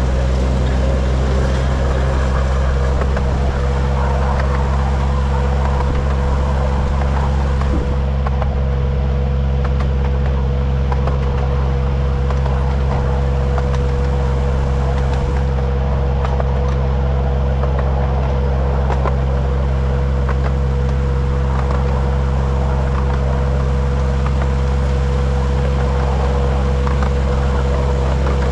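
Miniature railway diesel locomotive's engine running steadily at one speed, with a steady whine above it.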